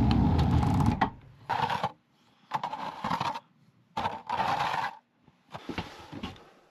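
A plastic snow shovel scraping snow off a ribbed step platform in several separate strokes. A loud low rumble stops about a second in.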